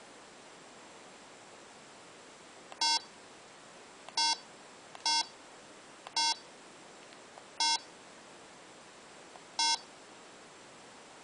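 Six short electronic beeps, all at the same pitch and unevenly spaced, from a homemade commlock prop built around a small media player as its buttons are pressed to step through its menus. A faint click of the button comes just before each beep.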